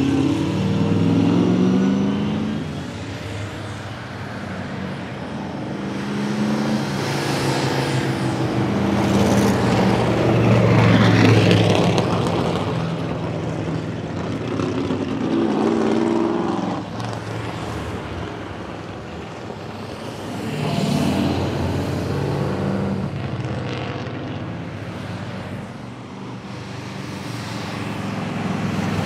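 Big-block V8 engines of 1963 Ford Galaxie 500 race cars, Ford 427 (7.0-litre), driving by on a winding climb. They accelerate and ease off several times, the pitch rising with each acceleration, and they swell in loudness as they pass, loudest about eleven seconds in.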